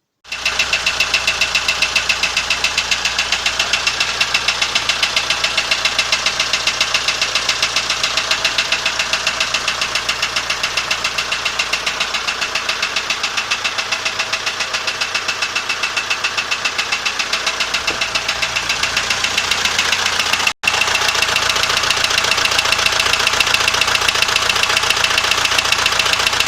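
ZMZ-514 four-cylinder turbo diesel idling steadily with a regular, hard knock. The knock was blamed on a connecting rod; the owner traces it to excessive piston play.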